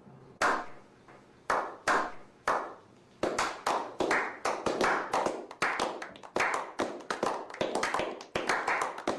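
A slow clap: single hand claps spaced about a second apart, then, about three seconds in, several people join and it quickens into faster, overlapping clapping.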